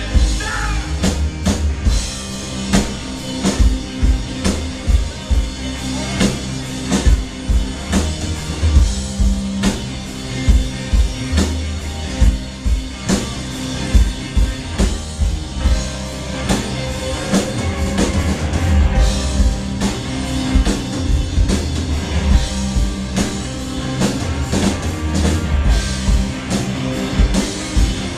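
Live rock band playing an instrumental passage: a drum kit keeping a steady beat under electric guitar and keyboard.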